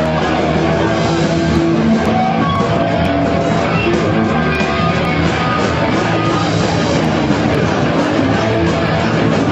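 Rock music with guitar, playing steadily and loud.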